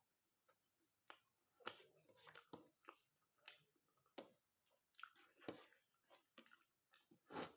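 Close-miked chewing and wet mouth smacks of someone eating chicken curry with rice: a run of short clicks beginning about a second in, the loudest near the end.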